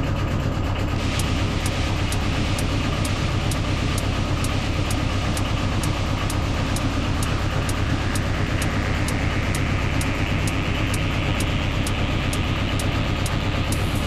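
Chinese 8 kW diesel air heater running: a steady low hum from its blower, with the fuel dosing pump ticking about three times a second. A rushing hiss grows louder from about halfway through.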